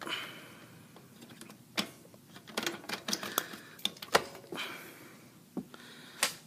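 Irregular clicks and knocks of handling as a gloved hand works at a sheet-metal electrical box and its wiring, with some rubbing and rustle between them.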